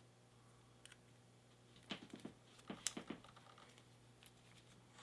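Key being inserted and worked in the keyway of a vintage brass Slaymaker padlock: a few faint metallic clicks, bunched about two and three seconds in.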